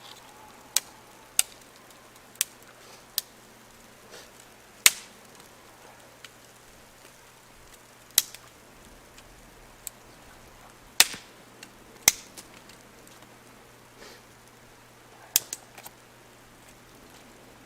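Sharp, isolated cracks and snaps of wood, about a dozen, coming at irregular intervals a second or more apart.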